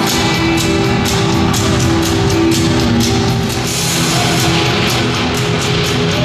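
Loud rock music with a fast, steady drum beat.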